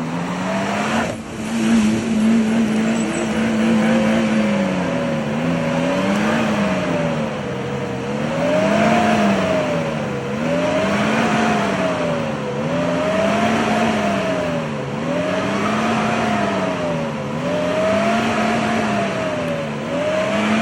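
Suzuki Jimny's engine running at high revs. The revs hold steady for the first few seconds, then rise and fall over and over, about once every two seconds.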